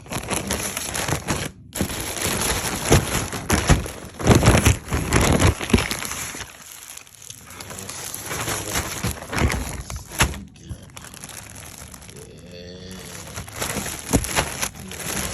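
Packaging crinkling and rustling in irregular handling bursts as merch is unwrapped, busiest over the first ten seconds and quieter after.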